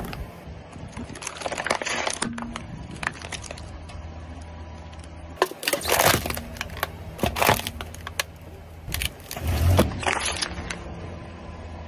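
A car tyre rolling over plastic bottles and a drink can, crushing them in several bursts of cracking and crunching. The loudest come about six seconds in and again near ten seconds, over a steady low hum.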